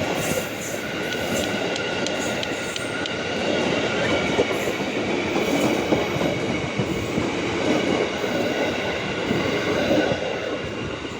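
JR 205 series electric commuter train running past, a steady rumble of wheels on rail with a thin high whine over it and a few light clicks in the first three seconds.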